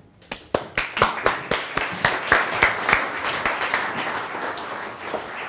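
Audience applauding: a few scattered claps that swell within a second or two into full applause, then ease off slowly toward the end.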